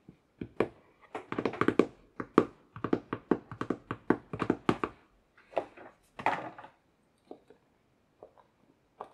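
Hands handling the packaging and body of a vape box mod during unboxing: a quick run of clicks and knocks for the first five seconds or so, a softer handling noise around six seconds in, then a few scattered taps.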